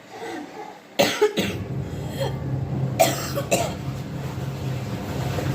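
A person coughing with a cold: two coughs about a second in and two more about three seconds in. A steady low hum sounds underneath from the first coughs on.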